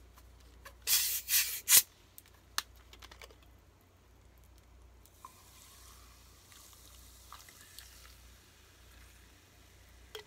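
Thin plastic drink bottle handled and opened: three loud crinkling crackles of the plastic about a second in, then a few faint clicks and handling noises.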